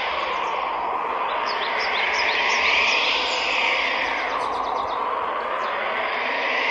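Steady whooshing noise that swells and fades in slow sweeps, with a quick run of short rising bird-like chirps about a second in.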